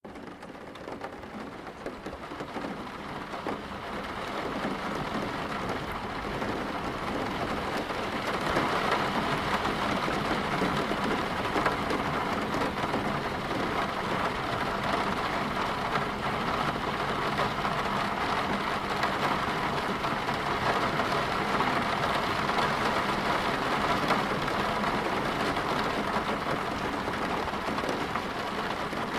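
Steady rain falling, growing louder over the first eight seconds or so and then holding steady.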